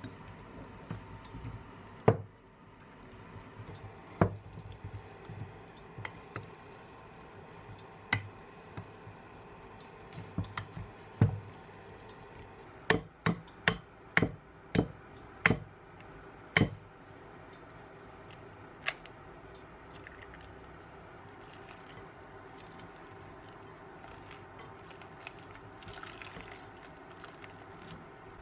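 Scattered sharp knocks and clicks of small objects being handled, about a dozen in all, with a quick run of them in the middle, over a faint steady hum.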